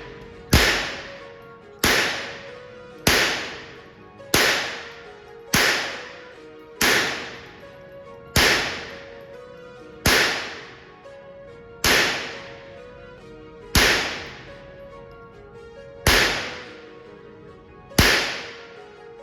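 Gunshots: about twelve single rounds fired one at a time at a slow, uneven pace, a second or two apart, each sharp crack followed by a short ringing decay.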